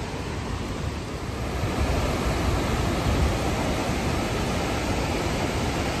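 Steady rushing roar of a river in flood, whitewater pouring through rapids and falls swollen by heavy rain.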